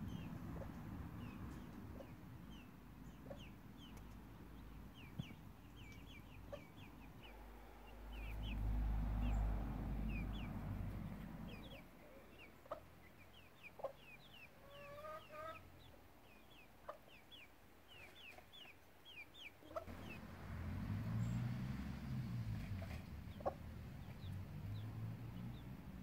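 Month-old Silkie chicks peeping over and over in short, high chirps, with a lower, drawn-out call from a bird about halfway through. Twice a louder low rumbling noise comes in for a few seconds.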